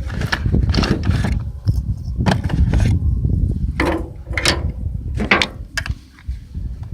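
Shotgun being handled and loaded with a birdshot shell: an irregular run of mechanical clicks, clacks and knocks over a steady low rumble.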